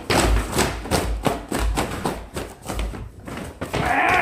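Pink cardboard boxes being stamped on and crushed underfoot: a rapid run of thuds and cardboard crunches, with heavier thumps about once a second.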